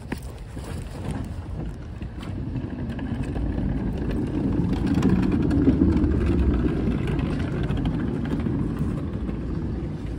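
A low rumbling noise that builds to its loudest about halfway through and then eases off.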